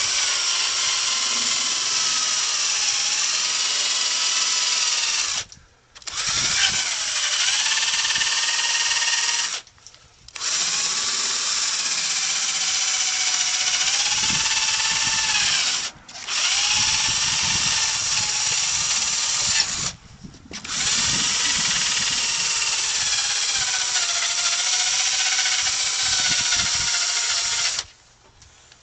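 Power drill spinning a polishing pad against a headlight lens during buffing, running in five long stretches with four brief stops between them. Its whine dips and recovers in pitch as the pad is pressed onto the lens, and it stops near the end.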